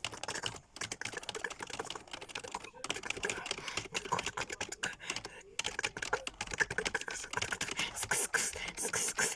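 Fast continuous typing on a computer keyboard: a rapid stream of key clicks, broken by brief pauses about a second, three seconds and five and a half seconds in.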